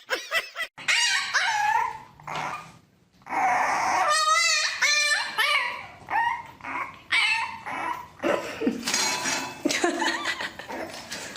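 A dog whining and yipping in a string of short high calls that waver in pitch.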